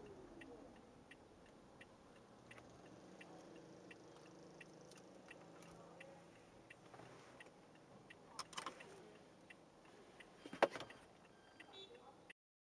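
Car's indicator relay ticking faintly and steadily inside the cabin, about two ticks a second, with two louder knocks past the middle. The sound cuts off suddenly near the end.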